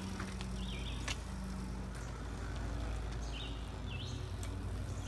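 Outdoor ambience: a steady low hum and rumble, with a bird giving a few short chirps and a few faint clicks.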